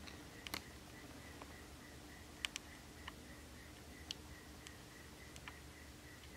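Quiet room tone with a faint high tone pulsing about four times a second, and about seven faint, sharp clicks and ticks scattered through, the loudest two close together about two and a half seconds in.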